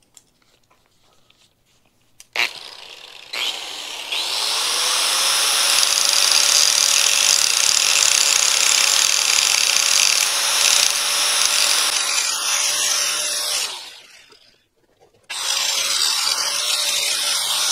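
Corded angle grinder with an abrasive grinding disc starting up about three seconds in, its motor whine rising and then holding steady under a loud, harsh grinding hiss as it cuts metal off the lip of a mini excavator's steel quick hitch. It stops near the middle and starts grinding again for the last couple of seconds.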